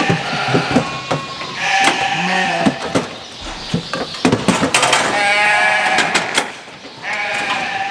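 Sheep bleating several times, the longest call about five seconds in, wavering in pitch. Sharp metal clanks from the gates and bars of a sheep-handling chute come between the bleats.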